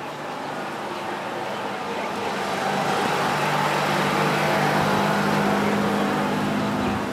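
A motor vehicle's engine running steadily, growing louder over the first few seconds, holding, then dropping off near the end.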